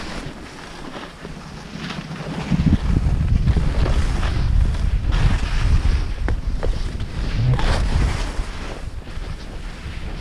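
Wind buffeting the microphone during a fast ski descent, with the hiss and scrape of skis sliding and turning on packed snow. It is softer for the first two seconds or so, then picks up.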